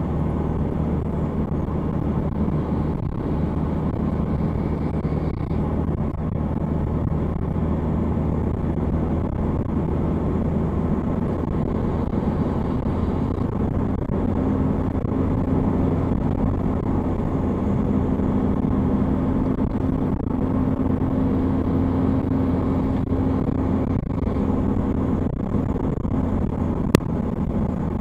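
Car driving at a steady pace, heard from inside the cabin: steady engine hum and tyre noise. The engine note rises slightly about halfway through, and there is a single sharp click near the end.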